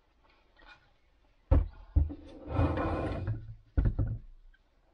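BMW S1000RR cylinder head being set down and shifted on a workbench: two heavy knocks about a second and a half in, a scraping slide, then two more knocks near the end.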